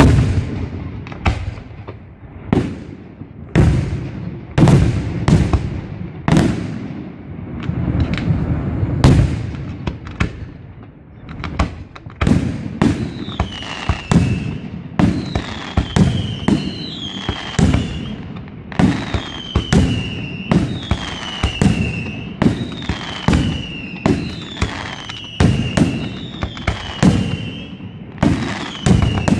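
Aerial firework shells bursting in quick succession, a steady run of sharp bangs. From about halfway, a falling whistle sounds about once a second among the bangs.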